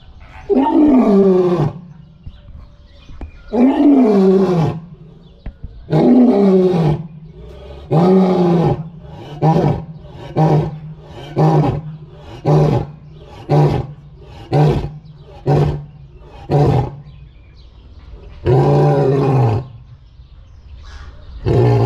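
A lion roaring in a full roaring bout. It gives three long roars that each fall in pitch, then a run of about a dozen short grunting roars, roughly one every 0.7 s, then one more long roar near the end.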